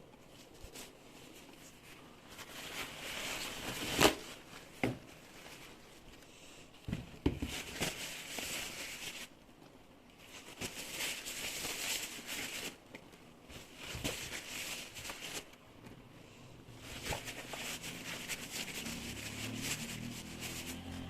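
Plastic bags and grocery packaging rustling and crinkling in stretches of a second or two, with a few sharp knocks of things being handled, the loudest about four seconds in.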